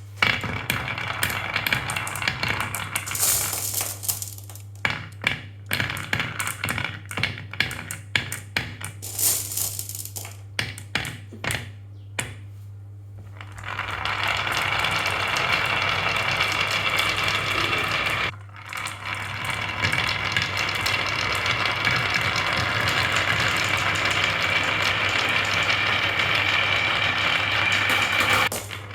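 Objects running down a toy marble-run track. For roughly the first twelve seconds there are many quick clicks and clacks, then a steady rolling whir for the rest, broken once briefly about two-thirds of the way through.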